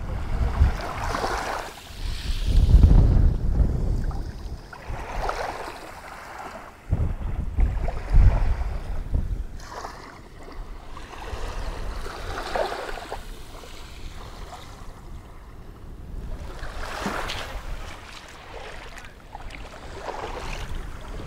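Small waves washing in over a shallow shell-strewn beach, swelling and fading every few seconds. In the first half, gusts of wind buffet the microphone in low rumbles.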